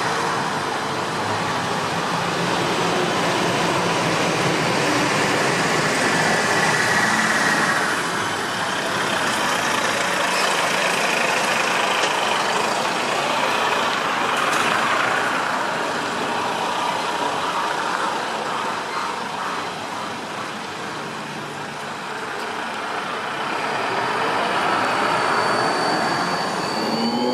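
A large transit vehicle running close by, a steady noise that swells and eases, with thin high squealing tones coming and going over it.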